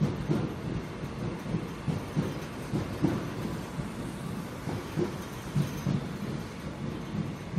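Electric commuter train rolling slowly along the track: a low rumble with irregular dull thumps as its wheels pass over the rail joints.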